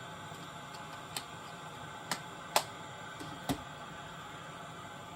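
Four sharp clicks and taps over about two and a half seconds, the third the loudest, from a CD and the DVD-VCR's disc tray being handled while the disc is loaded, over a steady hiss.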